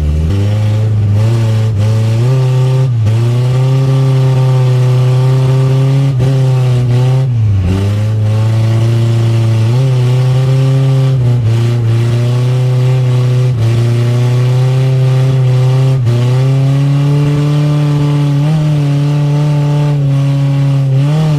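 Chevrolet Chevette's engine, heard from inside the cabin, revving hard while the car is driven on a wet track. The revs climb and hold, then drop sharply about half a dozen times as the throttle is lifted and picked up again.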